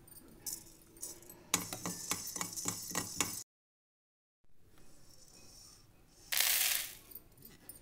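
Peppercorns and other whole spices rattling and clicking in a dry iron kadai as they are dry-roasted, a quick run of clicks about five a second. The sound cuts out dead for about a second midway, and a short hiss comes near the end.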